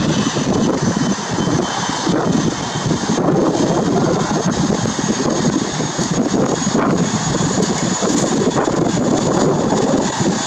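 Boeing 737-800's CFM56-7B turbofan engines running at low taxi power as the airliner taxis past: a steady rushing rumble with a thin high whine over it.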